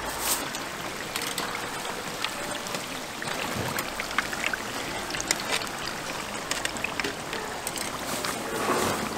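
Battered twigim deep-frying in a pan of hot oil: a steady sizzle dotted with many small crackles and pops.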